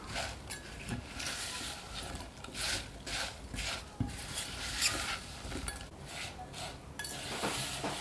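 Silicone spatula stirring sugar-coated chopped strawberries and raspberries in a ceramic bowl: a run of scraping, squishing strokes about two a second, with a few sharp taps of the spatula against the bowl.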